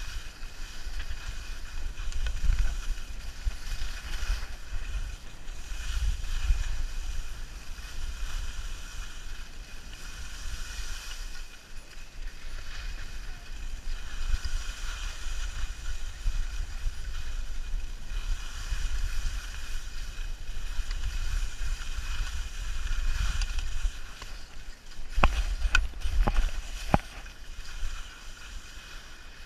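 Skis hissing as they slide and carve over snow, swelling and fading every couple of seconds, over steady wind rumble on the microphone. A few sharp clicks come near the end.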